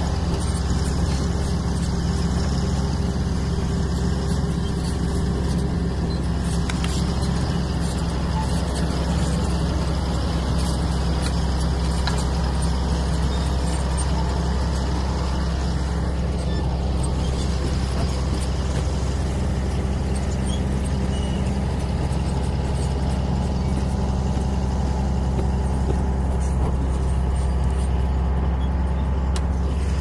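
Bulldozer's diesel engine running steadily, a constant low drone.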